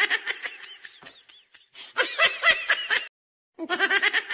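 Laughter sound effect: high-pitched giggling in repeated bursts with dead silence between them.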